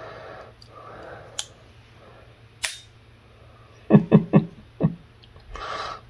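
Stiletto switchblade knife handled on a wooden tabletop. Two sharp clicks come first, then a quick run of four knocks about four seconds in and one more just after, with a brief rustle near the end.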